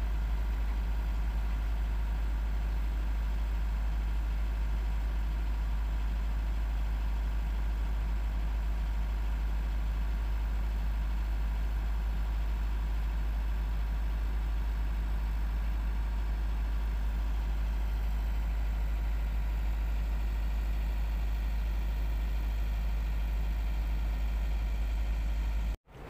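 Tugboat's diesel engine running steadily, an even deep drone heard on board; it cuts off abruptly near the end.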